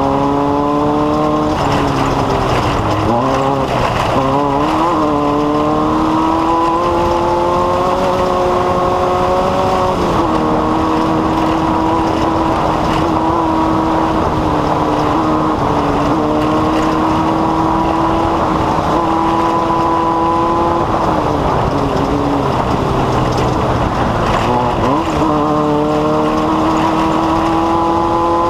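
Off-road race vehicle's engine running under load, its pitch holding, dropping and climbing again several times as the throttle and gears change, over heavy road and rattle noise.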